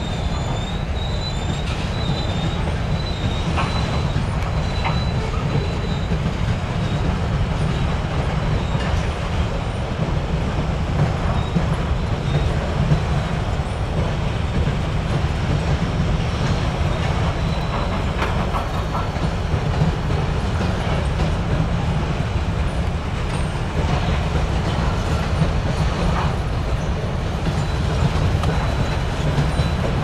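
Steady heavy rumble of a rail car rolling along the track, heard from aboard, with scattered clicks from the wheels. A thin, wavering wheel squeal runs through the first few seconds.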